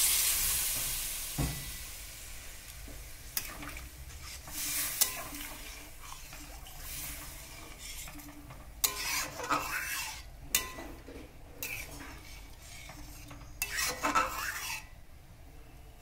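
Water poured into a hot wok of frying curry masala sizzles loudly and dies down over about two seconds. Then a metal spatula stirs the curry, scraping and clinking against the wok every few seconds.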